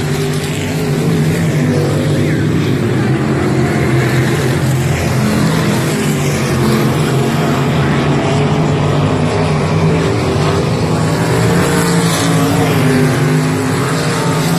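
Several winged sprint cars' V8 engines running hard at race speed, a loud steady drone of many cars at once that swells and fades slightly as they circle the track.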